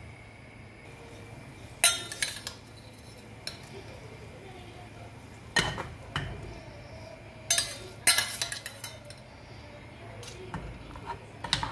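Steel ladle stirring in an aluminium pressure cooker and clinking against its side and rim. There are several sharp clinks and short clatters a few seconds apart.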